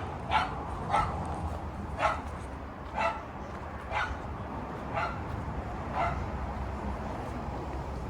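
A dog barking single barks about once a second, getting fainter toward the end, over a steady low rumble.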